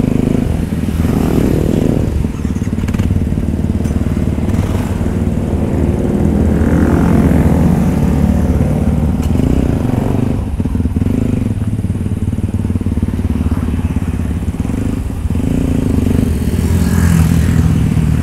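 Yamaha WR155R's single-cylinder four-stroke engine running steadily at low revs.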